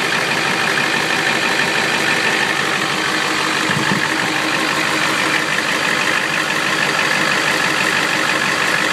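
IDI diesel engine idling steadily with a little tick, which the owner is trying to pin on either a lifter or an exhaust leak.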